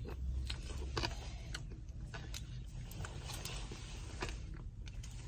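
Faint chewing of a spoonful of soft-serve ice cream with peppermint candy pieces: scattered small crunches and mouth clicks at irregular intervals, over a low steady rumble.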